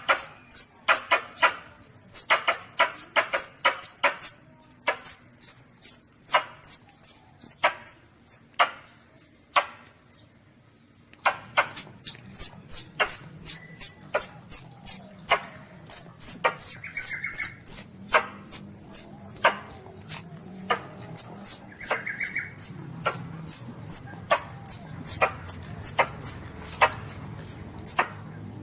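Baby Asian palm civet calls: a rapid run of short, sharp, high squeaks, about four a second, with a break of about a second and a half just before the middle.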